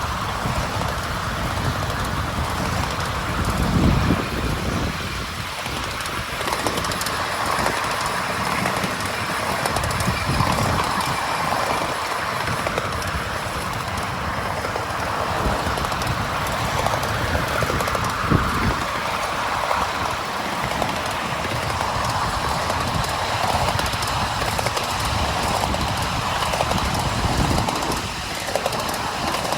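Miniature railway train running along the track: a steady rumble of wheels on rail with occasional heavier knocks.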